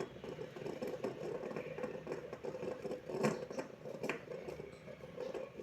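Beyblade spinning top whirring on a surface with a steady, motor-like hum, and two sharp clicks about three and four seconds in.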